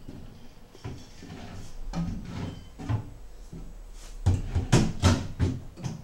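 Wooden kitchen-cabinet parts knocking and bumping: a few light knocks, then a quick run of louder sharp knocks about four seconds in.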